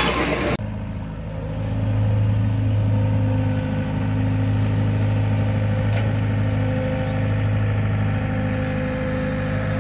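Heavy diesel engine of the pond-digging machinery running steadily, growing louder about a second in and then holding a constant hum. A vehicle horn cuts off just after the start.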